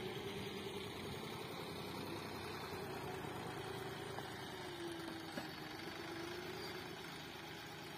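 Farm tractor's diesel engine running steadily while its front-end loader raises a bucket of manure, the engine note wavering slightly partway through.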